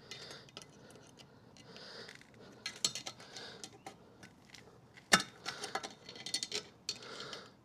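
Small metallic clicks and clinks of pliers being picked up and worked against the outboard propeller nut's tab washer to bend its locking ears, with one sharp click about five seconds in.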